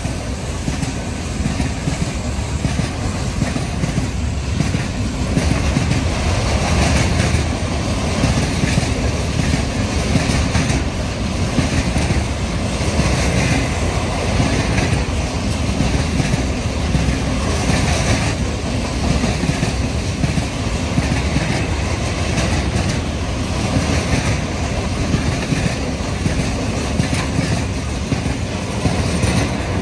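Freight train's container flat wagons passing close at speed: their wheels run on the rails with a steady, loud rumble that does not let up.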